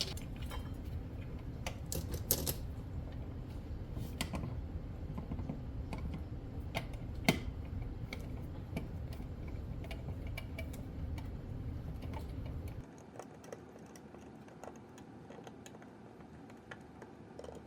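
Scattered light clicks and taps of small objects being handled and set in place, over a low steady hum that cuts off about three quarters of the way through.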